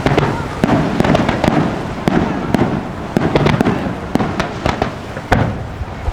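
Fireworks going off in quick succession: a dense run of sharp bangs and crackling bursts, several a second, over a continuous rumble.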